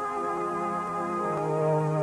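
Background music of slow, sustained keyboard chords; the bass note steps down to a lower pitch just over a second in.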